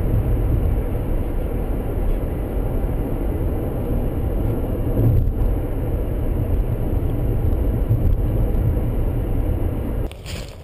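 Steady road and engine noise of a moving car, heard from inside the cabin. It drops off abruptly near the end, giving way to quieter outdoor sound.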